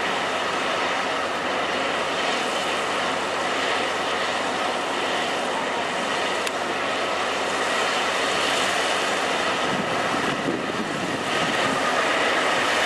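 John Deere 7760 cotton harvester, converted to a stripper with an onboard round baler, running: a loud, steady mechanical noise that dips slightly near the end.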